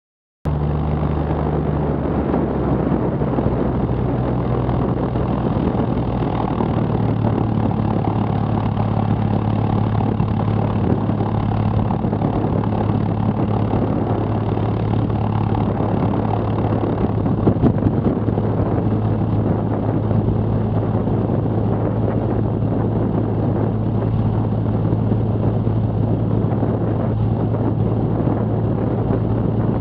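Cessna Skylane's piston engine and propeller running steadily at low taxi power, cutting in suddenly about half a second in. A brief cluster of louder knocks comes about two-thirds of the way through.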